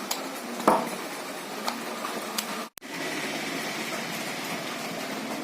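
A screwdriver prying the glued aluminium heat-sink plate out of an LED bulb: a knock under a second in and a few light clicks over a steady hiss, with a brief dropout a little after halfway.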